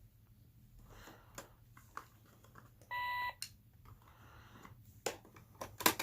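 Toy cash register being worked: scattered plastic clicks and taps, with one short electronic beep about halfway through and a quick cluster of louder clicks near the end.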